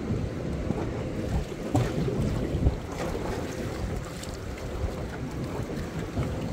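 Wind buffeting the microphone and choppy water slapping against a small boat's hull, with a few faint clicks.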